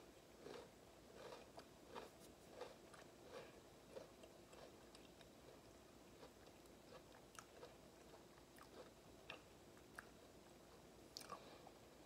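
Faint, close-up chewing of a mouthful of Oreo cookie, a soft chew about every two-thirds of a second. The chewing fades out after about five seconds, leaving only a few small clicks.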